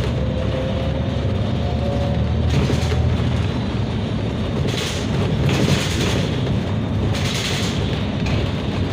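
Bus engine running and road noise heard from inside the cabin while the bus drives along, with a faint rising whine that fades about two seconds in. Several short bursts of hiss come through later.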